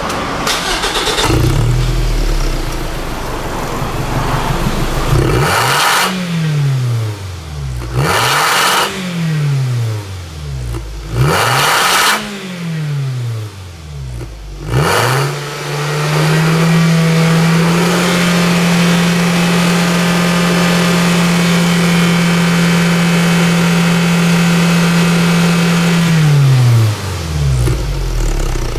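Toyota Isis engine through a Kakimoto-kai Hyper GT box Rev. aftermarket muffler, idling and then blipped three times, each rev rising and falling quickly. It is then raised and held at a steady higher rev for about ten seconds before dropping back to idle.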